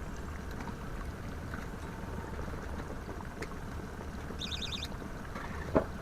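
Steady low wind rumble and water noise aboard a pontoon boat in gusty wind. A short, high, evenly pulsing chirp comes about four and a half seconds in, and a single sharp knock comes near the end.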